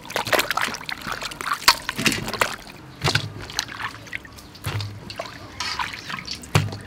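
Water splashing and trickling as hands rinse vegetables (okra, limes, carrots, small cucumbers) in a stainless steel bowl, then wet vegetables dropping into a metal colander with a few dull knocks and dripping.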